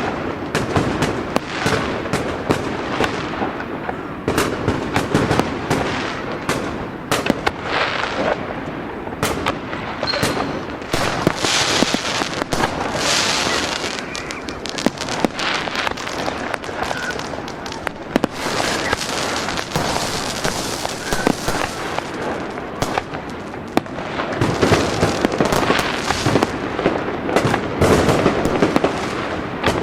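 Fireworks going off in a continuous barrage: many sharp bangs mixed with hissing, crackling bursts. The crackling thickens about a third of the way in and again near the end.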